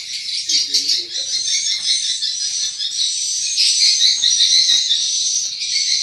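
Swiftlet calls: a dense, continuous high chittering of many overlapping rapid chirps, with a few faint knocks underneath.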